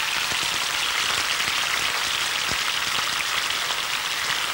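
Steaks frying in hot oil in a pan, a steady sizzle with scattered small crackles, as they are quickly seared.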